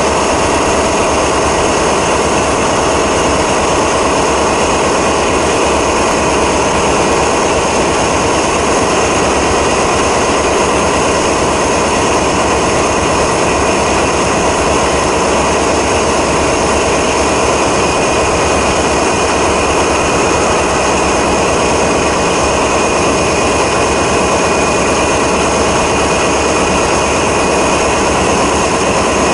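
SNCF BB 67400-class diesel locomotive's V16 diesel engine idling at standstill: a loud, even running noise with steady high tones over it.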